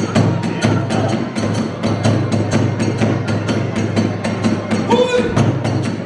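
Kagura hayashi accompaniment playing a fast, steady beat: drum strokes with clashing small hand cymbals, about four to five strokes a second. A brief higher pitched note sounds about five seconds in.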